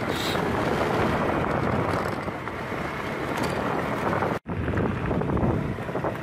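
Wind buffeting the microphone over a steady motorbike engine and road noise while riding. The sound cuts out suddenly for a split second about four seconds in, then resumes.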